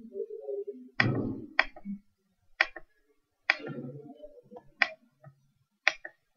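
Computer mouse button clicking: about six short, sharp clicks at irregular intervals, with faint low noises between some of them.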